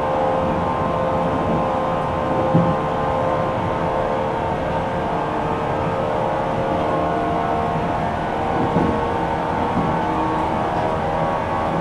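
Inside a JR West 475 series electric train car: a steady hum of several fixed tones over a low rumble, with two soft knocks, one a little over two seconds in and one near the end.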